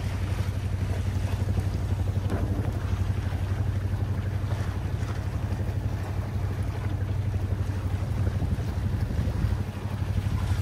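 Boat engine running steadily with a low, evenly pulsing hum, while wind buffets the microphone.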